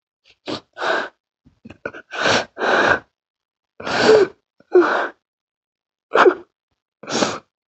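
A person crying, in a string of about eight short, gasping sobs with pauses between them.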